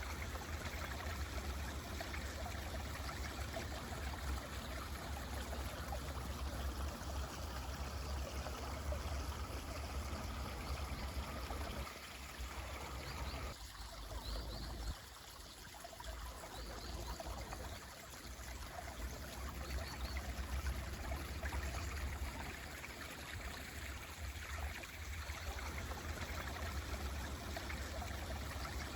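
Mountain stream flowing and trickling steadily, with a deep low rumble under it. A few faint, short bird chirps come about halfway through.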